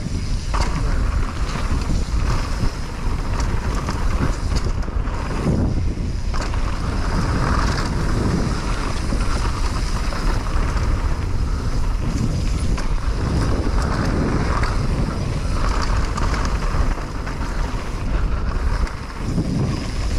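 Wind rushing over the microphone of a mountain bike rider at speed, with the tyres rolling on the dirt trail and brief knocks and rattles from the bike over bumps.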